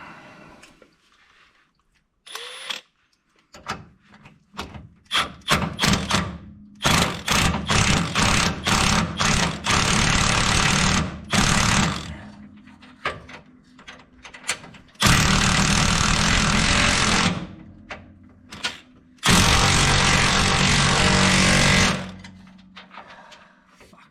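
Power tool running in repeated bursts, driving a long bolt through a rivet nut (nutsert) in the car's frame to draw it up and set it: several short bursts, a longer run, then two steady runs of a few seconds each. The rivet nut is only squeezing into the hole rather than setting.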